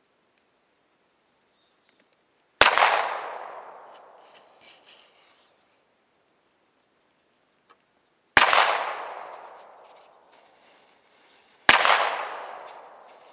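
Three single gunshots, fired slowly several seconds apart, each sharp crack followed by a long echoing tail.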